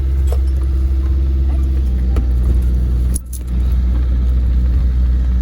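Steady low road rumble of a car while driving, with a few light clicks. The sound dips briefly about three seconds in.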